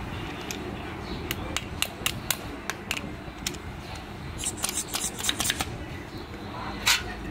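Sharp metallic clicks as a screwdriver works the piston and rubber seal in the bore of a Toyota Land Cruiser brake master cylinder. A few scattered clicks come first, then a quick cluster about four and a half seconds in, then one louder click near the end, over a steady low background rumble.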